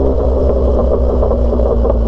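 A loud motorcycle engine running. Its clean, even note turns rough and uneven right at the start.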